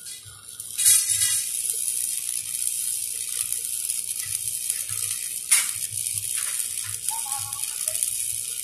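Stick (shielded metal arc) welding on steel pipe: the arc is struck about a second in and then crackles and hisses steadily as the electrode burns.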